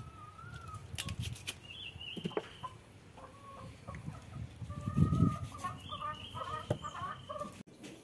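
Chickens clucking, a string of short pitched calls, mixed with a few sharp clicks. A dull thump about five seconds in is the loudest sound.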